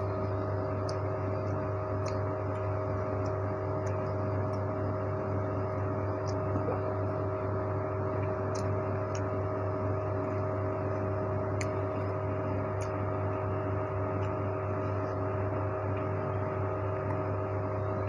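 Steady hum of a small electric motor, with a few faint light clicks scattered through it.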